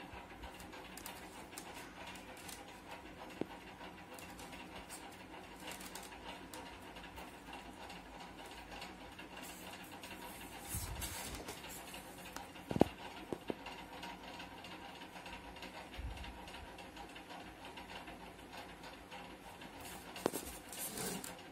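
Faint steady background noise with scattered light clicks and knocks of hands and a glue gun working on a thermocol sheet; one sharper click about 13 seconds in, and a few more near the end.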